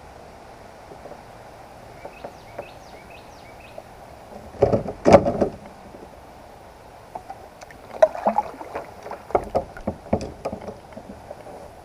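Knocking and splashing on and around a fishing kayak while a hooked bass is being landed. A loud flurry comes about five seconds in, and a longer run of knocks follows near the end.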